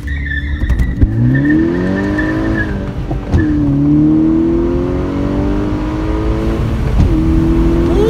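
A VW GTI's 2.0 TSI turbocharged four-cylinder under hard acceleration from a standstill, heard from inside the cabin: the revs climb, drop at a gear change about three seconds in, climb again and drop at a second shift near seven seconds. Through first gear a high-pitched squeal runs alongside, the front tires spinning for grip.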